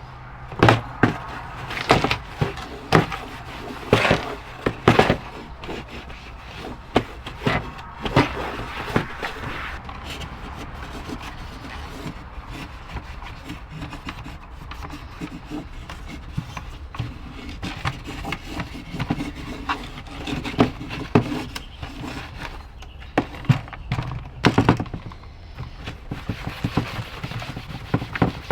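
A used car dashboard instrument surround being handled and cleaned. Several sharp knocks and taps in the first few seconds give way to a long stretch of steady rubbing, and more taps come near the end.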